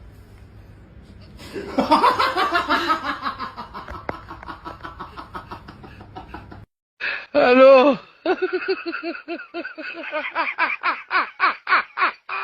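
Hearty laughter in quick, rhythmic bursts that tail off, then, after a cut, a brief voice and a second run of laughter.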